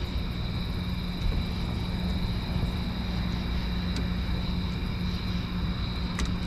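Steady mechanical drone with a constant low hum and a thin high whine, unchanging throughout, like a motor or engine running at a constant speed.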